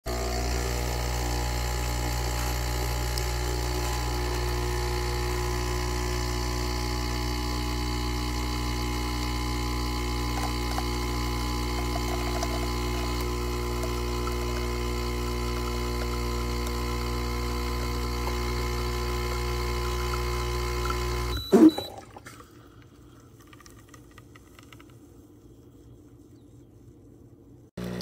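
Capsule espresso machine's pump humming steadily while it pushes espresso into the glass, then cutting off with a sharp click about 21 seconds in. Faint low noise follows.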